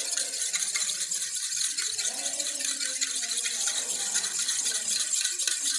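A hand-held spring coil whisk beating yogurt in an aluminium pot: a fast, continuous rattling swish of the wire coil through the thick yogurt and against the metal.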